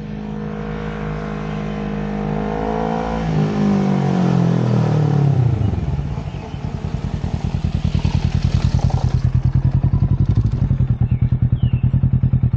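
Kawasaki Z650 parallel-twin engine through an Akrapovic exhaust: the revs climb, then fall away as the bike slows. It then settles into a loud, evenly pulsing low throb.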